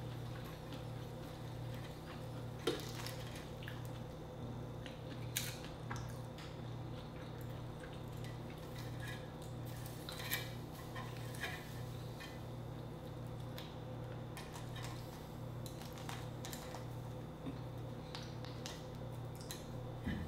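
Metal tongs clicking and scraping against the wire grate of a small charcoal grill as large shrimp are turned and lifted, in scattered sharp clicks. A steady low hum pulses evenly underneath.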